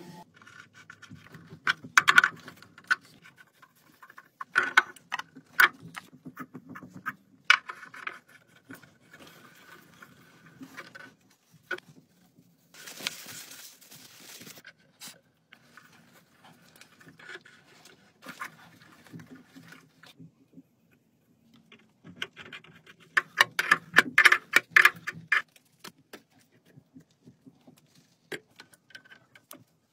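Clicks, taps and metallic clinks of brass plumbing fittings and tools being handled and fitted, in irregular clusters, with a short hiss about halfway through.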